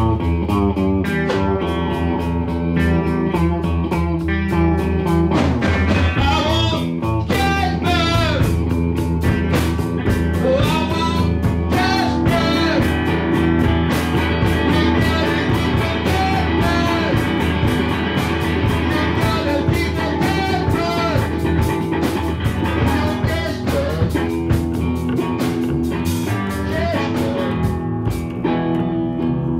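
Live band music led by guitar, with a steady, full sound throughout and bending notes from about six seconds in.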